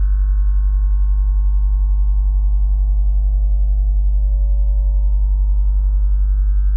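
Synthesized sine-tone drone: a loud, deep, steady hum under a cluster of higher pure tones that slowly slide down in pitch and then start back up about four seconds in.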